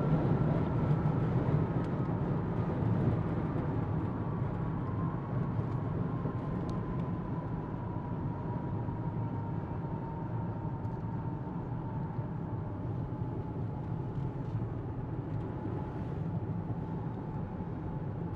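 TU-2S Dragon Lady's jet engine on its takeoff roll, heard from a chase car following it down the runway. A steady low rumble runs under a high whine that slowly falls in pitch and fades as the aircraft pulls away.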